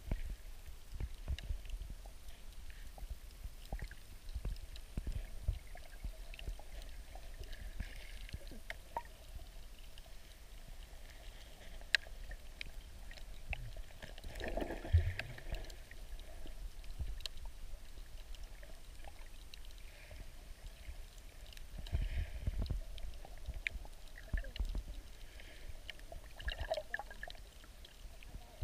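Underwater ambience picked up by a submerged camera: a steady scatter of faint clicks and crackles over a low rumble, with a gurgle of bubbles every several seconds, the strongest about halfway through.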